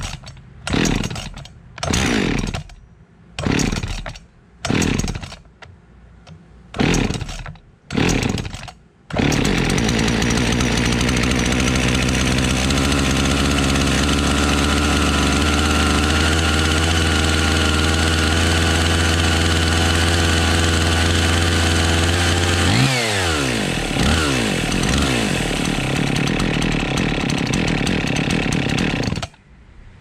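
Husqvarna 55 Rancher two-stroke chainsaw being pull-started: about eight quick pulls on the recoil starter, then it catches and runs steadily. It starts now that the fuel tank vent and fuel filter pickup have been replaced. A few brief revs come near the end, then the engine cuts off abruptly.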